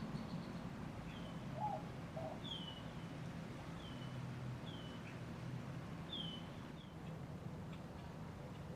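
Steady low hum of a running ceiling fan motor, with a bird chirping short falling notes about once a second.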